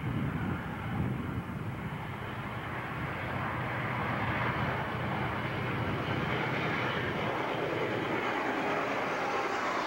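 Santa Fe freight diesel locomotives, an EMD SD40-2 leading three GE C30-7s, running under power as they approach and pass close by. The engines grow louder from about three seconds in.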